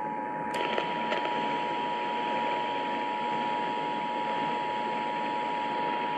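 Emergency Alert System attention signal: a steady two-tone pitch held unbroken, heard over radio hiss. It announces that an emergency alert voice message follows.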